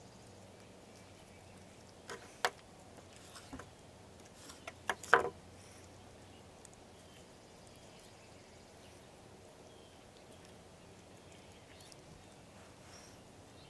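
A raw chicken drumstick being trimmed by hand on a wooden cutting board: a handful of short, sharp knocks between about two and five seconds in, the loudest near five seconds, over a faint steady background.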